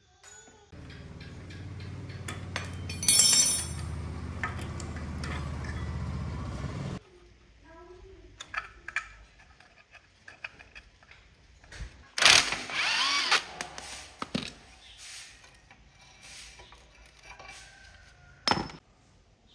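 Cordless impact wrench running steadily for about six seconds on a rusted motorcycle bolt, with one sharp knock partway through, then cutting off. Light metal clinks and scrapes of hand tools on rusty motorcycle parts follow, with one longer, louder scrape in the second half.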